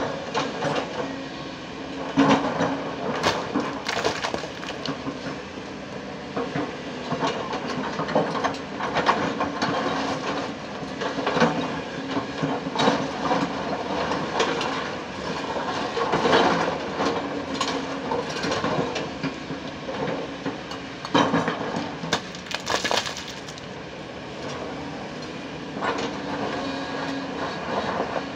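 Kobelco 220 hydraulic excavator's diesel engine running steadily while its bucket digs and scrapes through broken rock, with irregular clattering and cracking of stones knocking together, a few loud knocks standing out.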